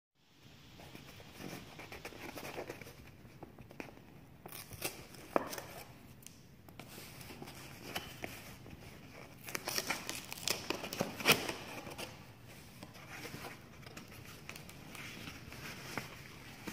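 Kraft paper package being opened by hand: paper rustling and crinkling as the sealed flap is worked open, with tissue paper inside rustling. Scattered sharp paper snaps, the loudest about five and eleven seconds in.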